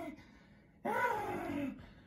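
A man doing a seal impression: one loud vocal call falling in pitch, starting a little under a second in, with the end of a previous call at the very start.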